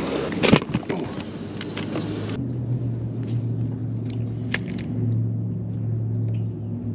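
A steady low engine drone from a distant boat motor, with a sharp knock about half a second in and a few light clicks.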